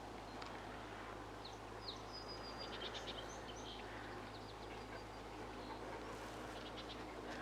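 Faint, high bird chirps in a quick series of short calls, clustered in the first half, over steady outdoor background noise.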